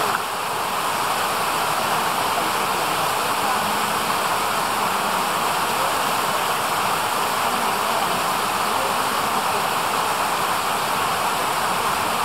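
Steady, unbroken rush of flowing water from a mountain stream.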